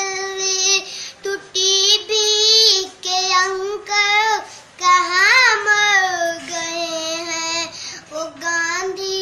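A young boy singing an Urdu nazm alone, with no accompaniment. He sings in short phrases of held, wavering notes with brief breaks for breath between lines.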